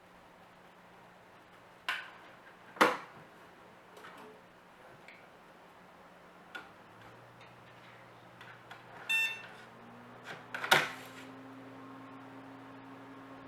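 Clicks and knocks from hands working on a desktop PC, then the computer powering up: a steady fan hum starts about halfway through, a single short beep from the motherboard speaker follows, and two more knocks come right after it.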